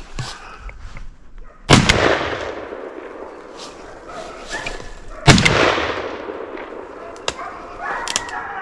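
Two shotgun shots about three and a half seconds apart, each a sharp, loud report with a long echo trailing off after it.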